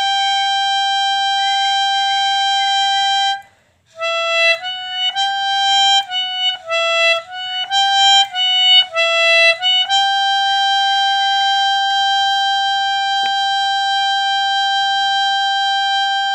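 Melodica playing a melody: a long held note, a brief pause, a run of short notes stepping up and down between a few pitches, then a long final held note.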